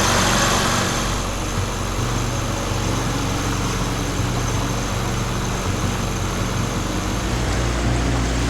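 Johnboat's outboard motor running steadily at slow, no-wake speed, its low rumble growing a little stronger near the end.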